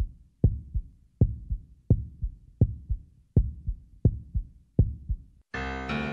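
Heartbeat sound effect: low double thumps, lub-dub, repeating a little under one and a half times a second. About five and a half seconds in, the beats stop and music with held piano-like chords starts.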